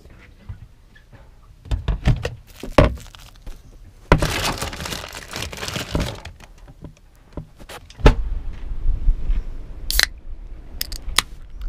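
Clunks and rattles of anchoring gear on a sailboat: a few sharp knocks about two seconds in, a rattling rush lasting about two seconds from about four seconds in, then a thud and more sharp knocks near the end.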